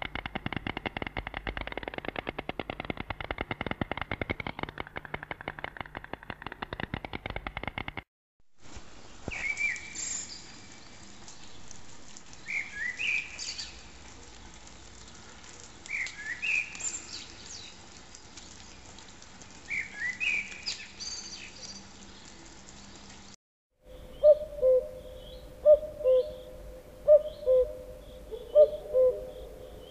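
Recorded bird voices, three in a row with brief silent breaks between them. First comes a rapid, dense rattling trill for about eight seconds. Next, a bird's short sliding calls repeat every three to four seconds. Last, near the end, come low hooting notes about twice a second.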